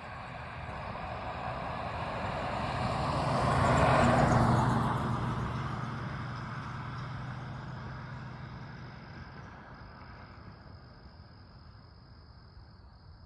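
A vehicle passing by: its noise swells to a peak about four seconds in, then fades away over several seconds, with a steady low engine hum under it. Insects chirp steadily near the end.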